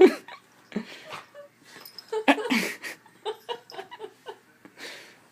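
People laughing and giggling in short bursts, with a little quiet talk mixed in.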